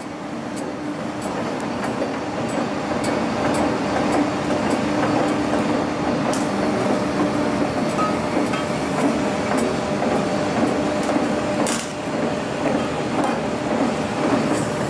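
Heavy diesel machinery running steadily at constant speed, an even hum with a steady low tone. Light metallic clicks are scattered through it, with one sharper clank about twelve seconds in.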